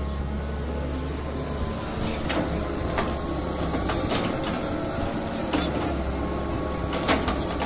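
Cat 320C excavator's six-cylinder diesel engine running steadily under working load, with five or six sharp knocks as the bucket works the rocky soil, the loudest near the end.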